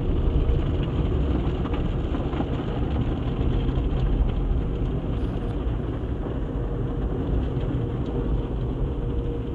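Automatic car wash at work, heard from inside the car's cabin: a steady, unbroken rush and rumble of the wash's water spray and machinery against the car body.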